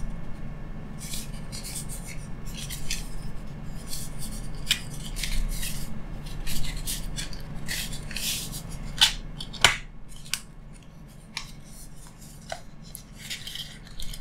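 Paper documents and small packaging being handled and unpacked from a box: irregular rustling and crinkling with light clicks and taps.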